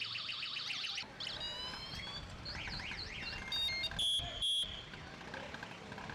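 Electronic alarm tones: a fast warbling siren tone that stops about a second in, then rising sweeps and stepped tones, then two short loud high beeps about four seconds in.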